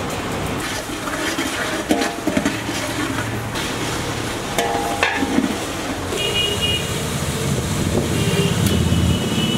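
Steady traffic noise with a low engine rumble and vehicle horns tooting twice in the second half, over a few metal clinks of a ladle against large aluminium cooking pots.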